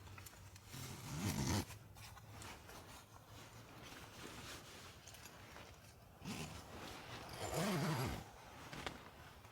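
A zipper pulled twice, about six seconds apart, each pull a short rasp.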